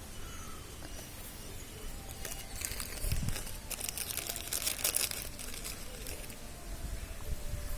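Hungry puppies jostling and feeding, making rustling, crinkling noises that cluster between about two and five seconds in, with a soft thump and a few faint squeaks.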